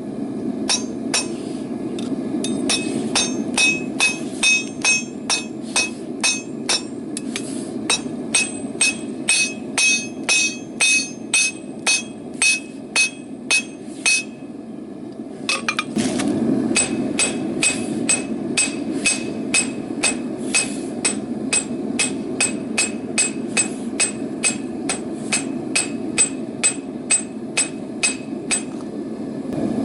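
Blacksmith's hammer striking hot rebar on an anvil in a steady rhythm of about two to three blows a second, each blow ringing. The hammering stops for a couple of seconds about halfway through, then carries on. A steady low rushing noise runs underneath.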